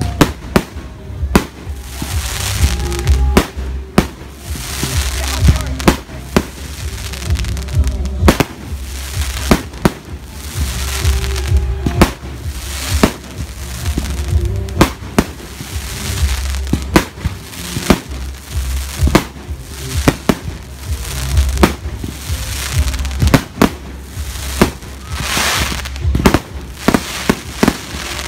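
Aerial fireworks display: a long run of sharp bangs from shells bursting overhead, often one or two a second, with crackling and hiss between them.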